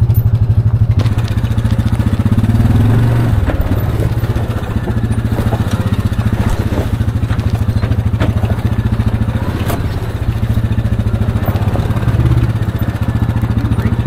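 Side-by-side UTV engine running at low speed as the machine crawls over a rocky dirt trail. The engine picks up briefly twice, and a few sharp knocks and clatter come through.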